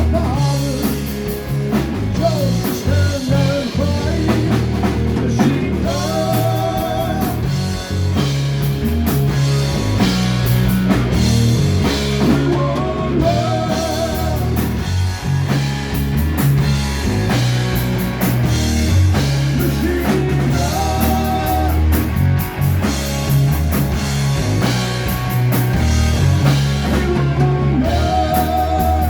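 Live rock band playing with electric guitar, bass and drums; a wavering melodic phrase comes back about every seven seconds over a heavy, steady low end.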